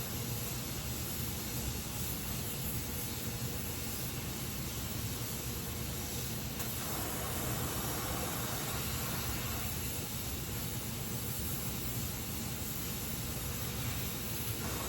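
Gas welding torch flame hissing steadily while aluminium is flame welded, its tone shifting briefly about halfway through.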